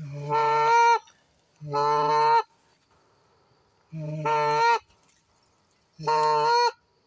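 Four long, loud goose honks about two seconds apart, each a single held note.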